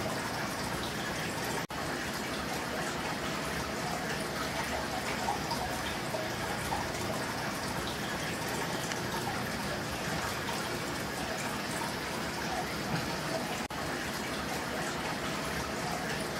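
Aquarium water circulating with a steady splashing and trickling, as from a filter return running into a large tank. It cuts out for an instant twice.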